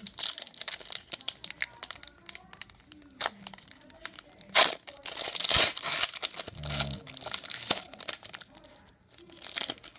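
A foil hockey card pack, 2016-17 Upper Deck Artifacts, crinkled and torn open by hand, with rapid small crackles. There is a sharp loud crackle about four and a half seconds in and a longer crinkling tear just after it.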